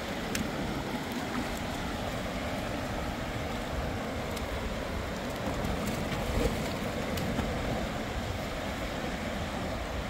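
Steady rush of a fast-flowing river over stones, with a brief splash about six seconds in as feet step through the shallow water.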